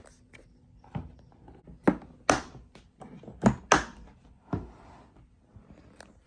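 A series of sharp clicks and knocks from the speaker box being handled, about six louder ones in a little over three seconds and a smaller click near the end.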